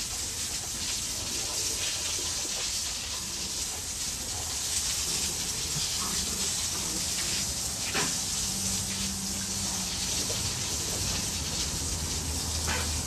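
Water from a garden hose spraying steadily onto a concrete kennel floor, a constant hiss, with a faint low hum joining about halfway through.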